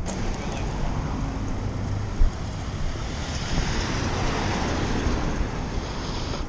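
Street traffic noise with wind on the microphone, a hiss that swells in the middle as a vehicle passes. One short thump about two seconds in.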